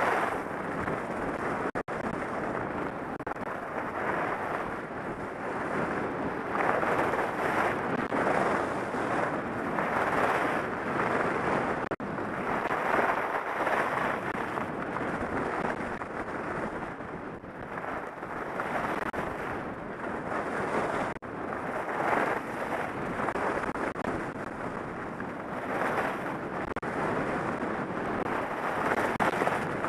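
Wind rushing over the camera's microphone during a fast ski descent, mixed with the hiss of skis carving and scraping on packed snow; the rush swells and fades every couple of seconds as the skier turns.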